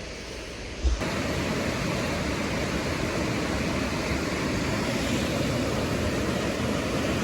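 Steady rushing of river water. It comes in suddenly about a second in, after a quieter stretch.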